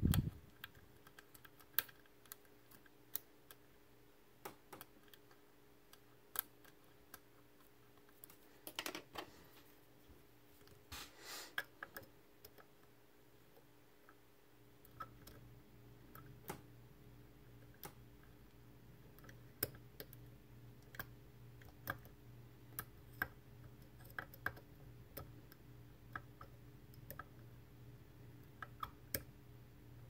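Faint, irregular metallic clicks and light scrapes of a hook pick working the pins of an Assa Twin 6000 lock cylinder under a tension wrench, with a louder knock at the very start and two brief scraping rustles near the middle. A low steady hum runs underneath.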